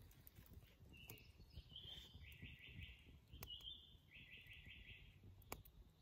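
A songbird singing faintly, twice: each phrase a short high note followed by a quick run of about five repeated notes. The wood fire gives a few sharp crackles in between.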